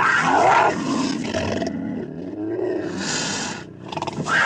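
A large wild animal calling loudly, one call running into the next, with a fresh loud call starting near the end.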